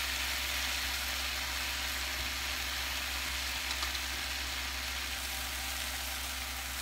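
Bacon grease, vinegar and water sizzling steadily around romaine halves on the hot griddle plate of an electric smokeless indoor grill, over the steady low hum of the grill's fan.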